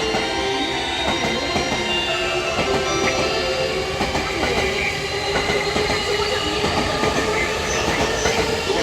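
E231-500 series electric commuter train pulling out of the station: the traction motors and inverter whine with many tones at once, one of them slowly rising in pitch as the train gathers speed, over a steady rumble with wheels clicking across rail joints.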